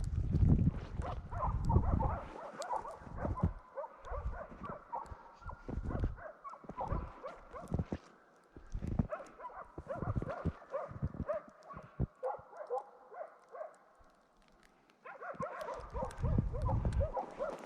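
Laika hunting dogs barking steadily at a distance, baying a moose they are holding, with irregular low thuds close by.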